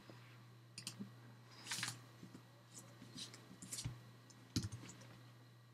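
Computer keyboard keys being typed: short, scattered clicks, sometimes two or three in quick succession, over a steady low hum.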